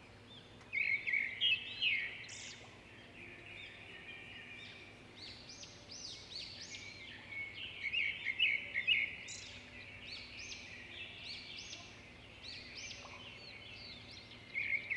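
Small songbirds chirping and singing, a busy run of short high notes, over faint outdoor background noise.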